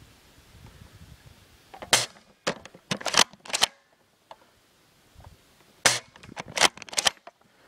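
Airsoft guns firing: two clusters of sharp pops. The first cluster comes about two seconds in and the second about six seconds in, each a loud first shot followed by several lighter ones.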